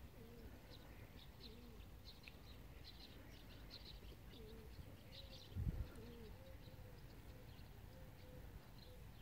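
Faint birdsong: small birds chirping in quick bursts in the first half, and a dove cooing repeatedly throughout. About halfway through there is a brief low thump, the loudest sound.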